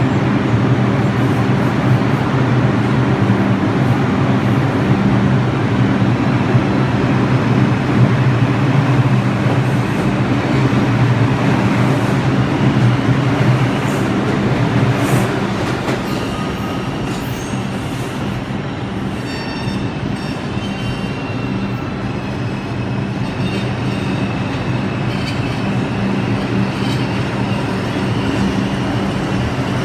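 R142 subway train running on the rails, a steady rumble with a low hum. Past the middle it eases slightly and thin high-pitched tones come in.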